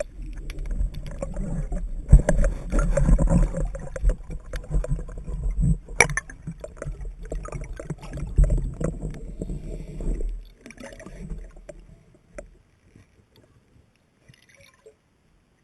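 Water sloshing and gurgling close to the microphone, with a low rumble and scattered knocks, one sharp knock about six seconds in. It dies away about ten seconds in, leaving near silence.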